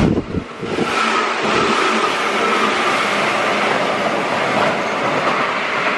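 JR West 205 series 1000-subseries electric commuter train running past close by: a steady rumble of wheels and running gear with a faint high whine. A brief dip in the noise comes just after the start.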